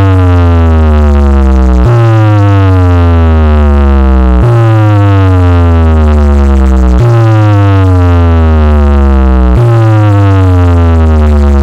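A towering DJ speaker-box stack blasting, very loud, a synthesized bass sweep that slides down in pitch over about two and a half seconds and then restarts with a deep bass hit, about five times over.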